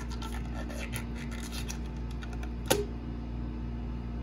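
A rubber balloon scratching and rubbing under fingers as it is worked over the neck of a bottle, with one sharp snap about two and a half seconds in.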